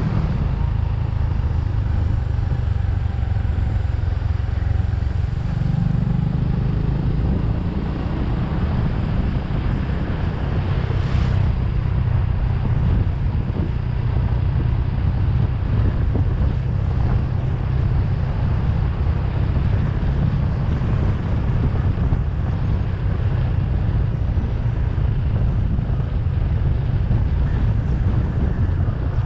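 Motorcycle engine running steadily under way, its note picking up slightly about six seconds in.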